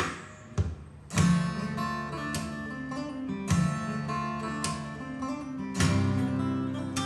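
Recorded acoustic guitar music played back over a hi-fi loudspeaker system, with sharp strummed chords coming about every second and a bit over ringing notes.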